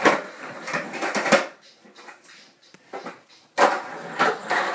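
Irregular knocks and clatters, then about two seconds of near quiet with a few faint ticks, and a sudden louder clattering noise near the end.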